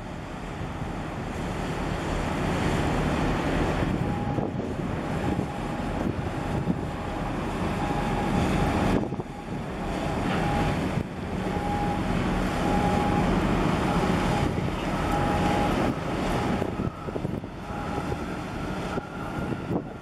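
Wind buffeting the microphone in gusts over a low steady hum from a passing container ship and the wash of water along its hull. From about four seconds in, a faint high tone keeps coming and going.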